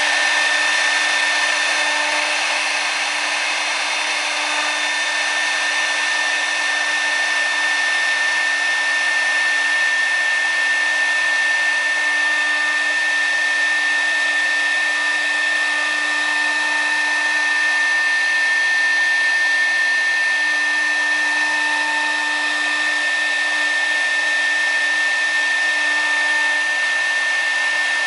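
CNC router spindle running at a steady high-pitched whine while its bit carves a relief into an acrylic sheet, over an even hiss of cutting.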